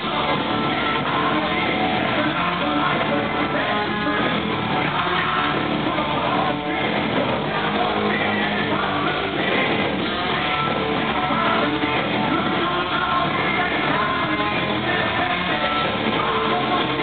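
Rock band playing live, with distorted electric guitars, drums and a singer, recorded from the crowd with a thin, muffled sound.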